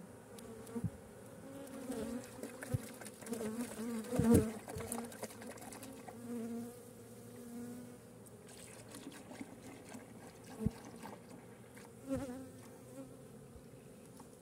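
Honeybees buzzing around an open hive, the buzz rising and falling as bees fly past, with a few sharp knocks, the loudest about four seconds in.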